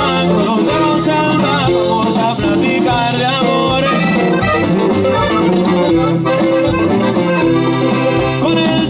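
Live norteño band playing an instrumental passage led by a diatonic button accordion, over a bass line and drums.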